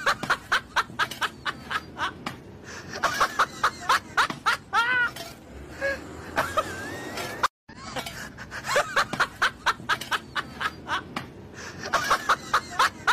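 A person laughing in rapid, high-pitched snickers and giggles. The same stretch of laughter seems to play again after a brief silent cut about halfway through.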